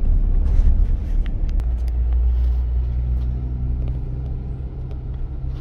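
Engine and road rumble heard from inside the cabin of a slowly moving car: a steady low drone that grows gradually quieter, with a few faint clicks in the first two seconds.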